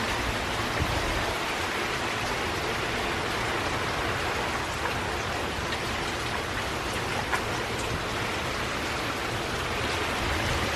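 Steady heavy rain pouring down from a tropical storm's rain band, with wind.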